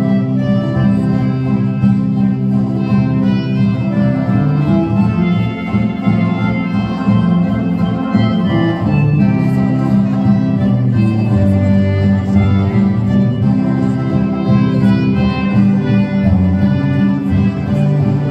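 A boereorkes (Afrikaans folk band) playing an instrumental boeremusiek tune: a moving melody line over steady chords and bass, continuous and even in loudness.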